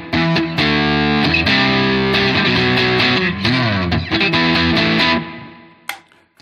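Epiphone Prophecy SG electric guitar through a lightly overdriven amp, neck pickup in its second voicing, playing a short phrase of chords and single notes with a pitch bend partway through. The last chord rings out and fades about five seconds in, followed by a short click.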